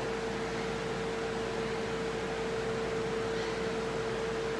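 A steady hum at one constant pitch over an even hiss, with no other sound standing out.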